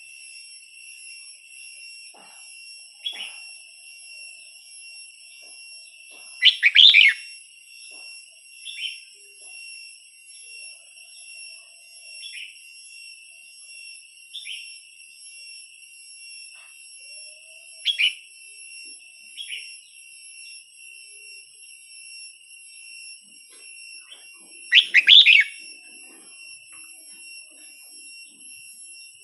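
Red-whiskered bulbul calling: two loud, full calls, one about seven seconds in and one near the end, with about six short chirps between them. A steady high-pitched whine runs underneath.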